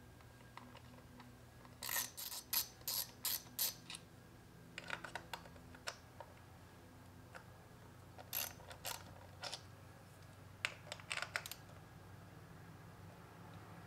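Small hand ratchet with an 8 mm deep socket loosening the bolts that hold down the coil packs on a Mazda 3 engine: the pawl clicks rapidly in four short bursts as the handle is swung back and forth.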